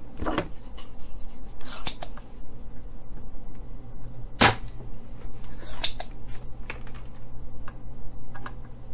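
Spring-loaded desoldering pump (solder sucker) working on a circuit board's solder joints, removing a capacitor. Several sharp clicks and snaps, the loudest about halfway through.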